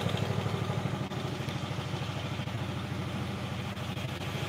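A small engine idling steadily, with an even, rapid low pulse.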